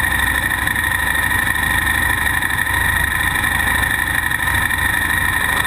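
KTM Super Duke V-twin engine idling steadily with the bike standing still, with a steady high whine over it.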